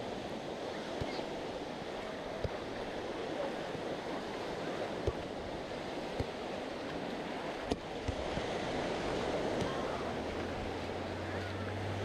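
Sea surf washing steadily onto a sandy beach, with a few soft thumps. Near the end a low, steady engine hum comes in underneath.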